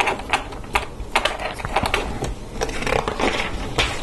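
LEGO Technic plastic parts clicking and rattling as the half-built model is handled in the hands, in an uneven run of small sharp clicks.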